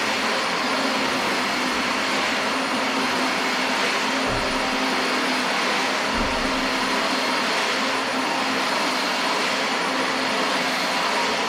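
Dyson DC25 Animal upright vacuum cleaner running steadily while vacuuming the floor, with two soft low thumps about four and six seconds in.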